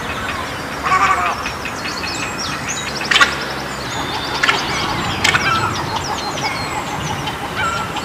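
A colony of egrets calling, many birds at once: a constant chatter of high chirps, with louder short calls standing out about a second in, around three seconds and around five seconds in.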